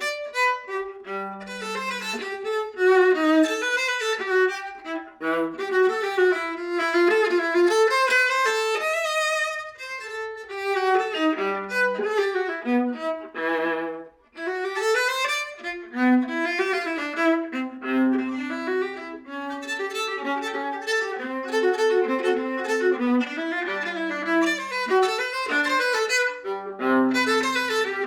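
Viola played with the bow in a flowing melodic passage, with some notes sounded together and a few deep notes on the low C string. The playing breaks off briefly about halfway through.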